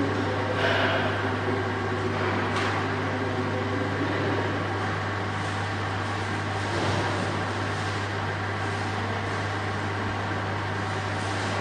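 Vending machine humming steadily, a constant low drone under hallway room noise, with a few faint brief distant sounds about a second in, near two and a half seconds and near seven seconds.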